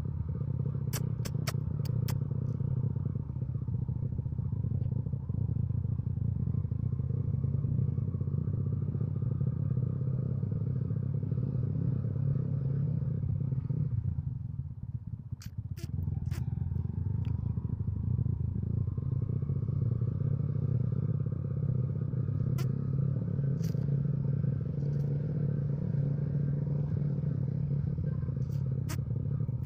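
Motorcycle engine running under way, steady for most of the time, dipping briefly about halfway through, then picking up again and rising in pitch. A few sharp clicks and rattles are scattered through it.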